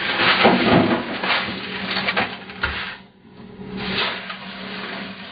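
Flake ice being scooped and shaken out over fish in plastic fish boxes: a crunching, scraping rattle with knocks of plastic boxes and a plastic basket. It drops away about three seconds in and comes back briefly near four seconds.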